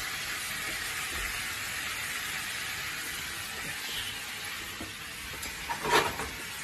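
Pan sauce of Worcestershire sauce, soy sauce and butter sizzling steadily in a frying pan over a gas flame, simmering down. Near the end there is a brief knock as chopsticks go into the pan to stir it.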